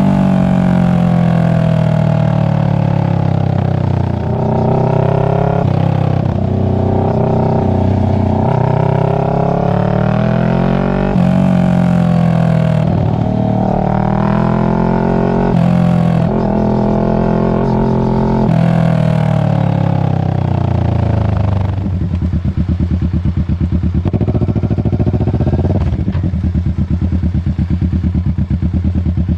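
Kawasaki Ninja 650's parallel-twin engine through a Two Brothers aftermarket exhaust, its pitch rising and falling repeatedly as the bike accelerates and slows. About 22 seconds in it settles to a lower, steady, pulsing note.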